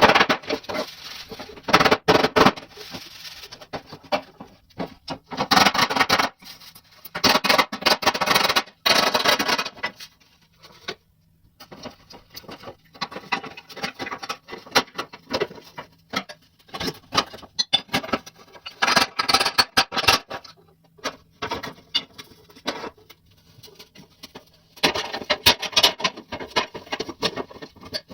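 Irregular bursts of scraping and rubbing with many small clicks, each burst lasting a few seconds with short pauses between.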